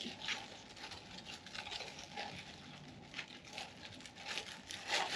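Clear plastic bag crinkling in irregular, faint rustles as it is worked over a disconnected negative battery cable terminal.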